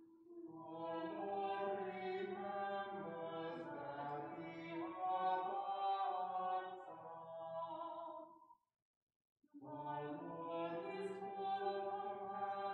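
A small choir singing a slow chant in harmony, several voices holding each note. The sound cuts out completely for about a second partway through, then the singing resumes.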